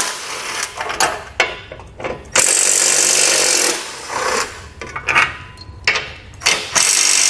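Cordless impact tool with a 15 mm socket hammering out the large bolts of a bumper support brace: a long burst of hammering from about two and a half seconds in, with shorter bursts and sharp metal clicks around it.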